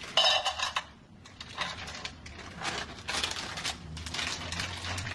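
Pieces of melting chocolate poured from a crinkly plastic bag into a metal pan, clattering in several short bursts with the bag rustling.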